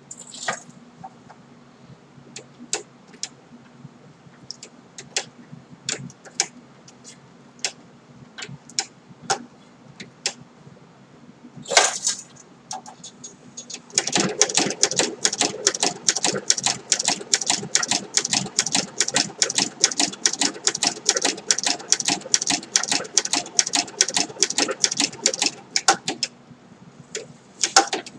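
Singer 7-34 industrial sewing machine stitching leather: scattered single clicks at first, then a steady run of rapid clicking stitches at about three to four a second for some twelve seconds, with a few more clicks near the end.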